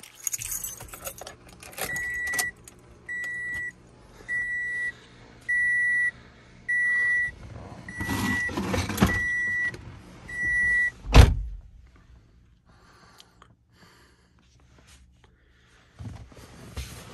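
Car keys jangling, then a 2012–2014 Toyota Camry's dashboard warning chime beeping eight times, evenly, about once a second. A single heavy thump comes about eleven seconds in, and the chime stops with it.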